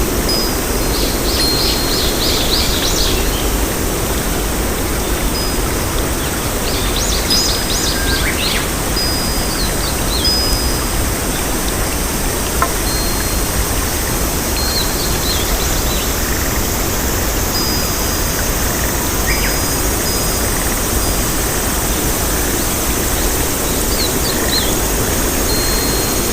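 Birds chirping and trilling in short high bursts, most busily in the first several seconds, over a steady, loud rushing noise.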